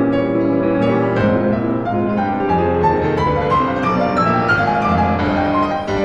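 Piano music: a melody of single notes stepping over held low notes.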